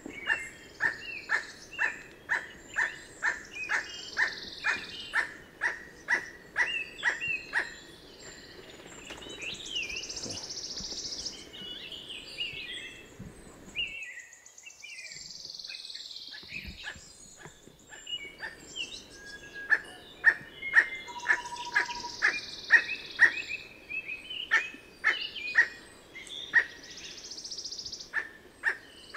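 Emerald toucanet calling: a long series of dry, barking notes, about two or three a second. The series stops about eight seconds in and starts again around twenty seconds in.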